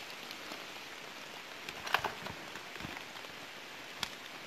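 Steady rain-like hiss with no engine running, broken by a sharp knock about two seconds in, a couple of softer knocks after it and another near the end, as a dirt bike is wrestled over a rock.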